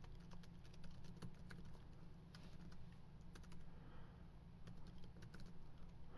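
Typing on a computer keyboard: faint, irregular keystroke clicks over a low steady hum.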